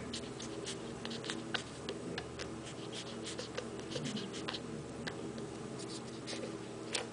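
Newborn French bulldog puppy sucking and mouthing on a hand: a steady run of small irregular clicks and smacks.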